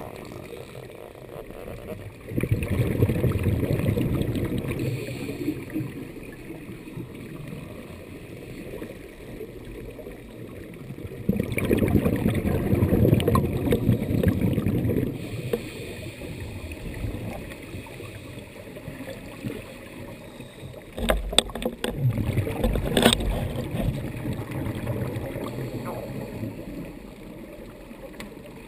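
Scuba divers' regulator exhaust bubbles heard underwater: three bursts of rushing bubbles, each a few seconds long, roughly every nine seconds with each exhalation. A few sharp clicks come near the third burst.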